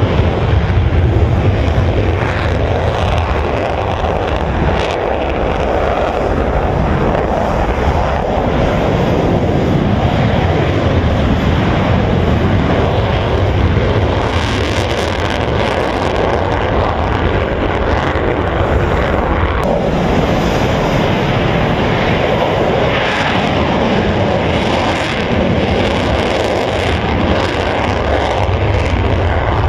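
Steady jet engine noise from F-16 Fighting Falcon fighters taxiing and rolling down the runway on takeoff.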